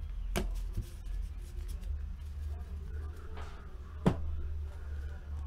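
Trading cards being handled on a table: soft sliding and rustling, with two sharp taps about half a second in and about four seconds in, over a steady low electrical hum.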